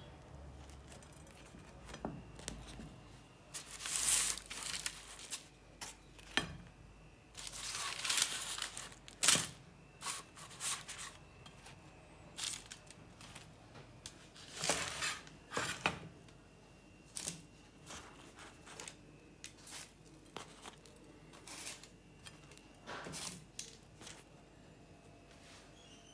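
Freshly baked crusty bread rolls being handled and pulled apart on a plate, the crust crackling and tearing in several short bursts with scattered clicks.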